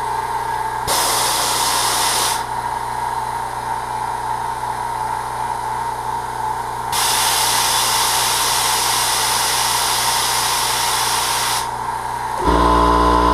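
Fortress 26-gallon Ultra Quiet air compressor running steadily on its break-in run with the drain valve open: an even motor hum with a steady tone. Two stretches of loud hiss come about a second in and again from about seven to twelve seconds. Near the end the hum turns suddenly louder and deeper.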